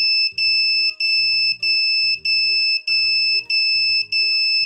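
Electronic buzzer on a breadboard circuit sounding as an ambulance siren: a loud, steady high-pitched tone, broken by a brief gap about every 0.6 seconds. Background music plays underneath.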